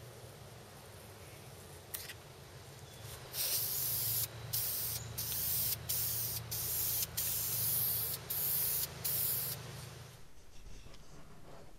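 Aerosol spray-paint can spraying in about eight short hissing bursts of a second or less each, with brief pauses between.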